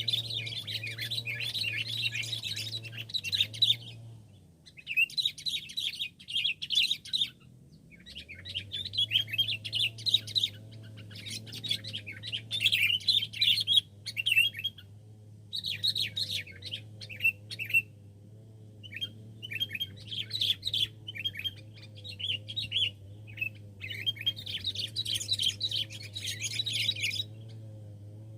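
Sooty-headed bulbuls chattering and chirping rapidly in bouts of a few seconds, separated by short pauses, as they are lured to a trap.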